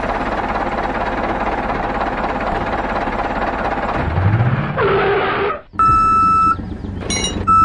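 Steady engine drone with a rising rev about four seconds in, then two loud electronic reversing beeps, each under a second long, near the end.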